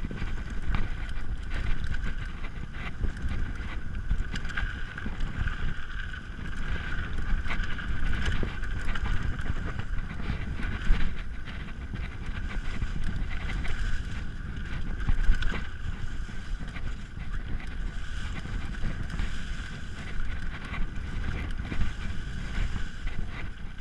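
Mountain bike descending a dirt singletrack at speed: wind noise on the camera microphone and tyres rolling over dirt and leaves, with frequent knocks and rattles as the bike hits bumps, over a steady high buzz.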